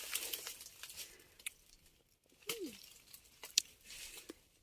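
A bird gives one short call, a note that rises and falls, about halfway through, with a few faint sharp clicks around it.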